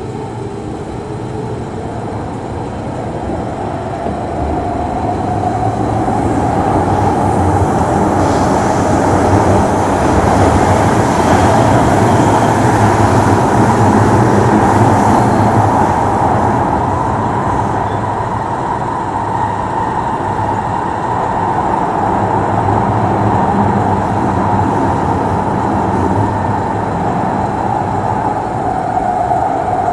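Singapore MRT train running through a tunnel, heard from inside the carriage: a steady rumble and rail noise with a hum on top. It grows louder over the first ten seconds or so as the train gathers speed, then holds steady.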